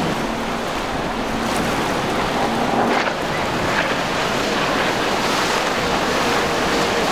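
Steady rush of water from a powerboat's wake and spray at speed, with wind buffeting the microphone. A faint steady engine hum runs under it for the first three seconds.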